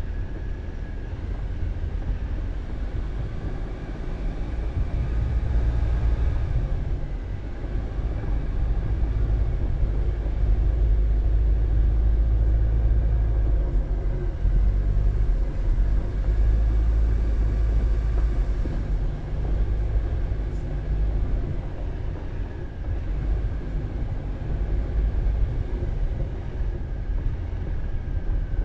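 A car driving on a dirt road: a steady low rumble of tyres and engine, louder through the middle.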